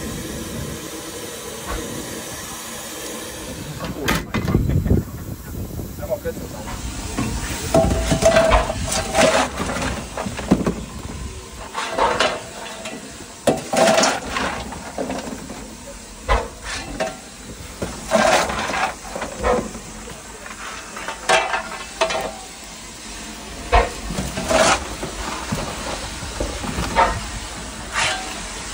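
Steam locomotive heard from its cab: a steady hiss of steam, then a sharp knock about four seconds in, followed by a string of irregular puffs and knocks every one to two seconds.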